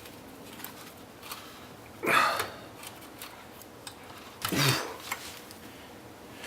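A man's two short breathy grunts of effort, about two and a half seconds apart, as he strains with a screwdriver at a tight screw, with faint small clicks of the tool and plastic between them.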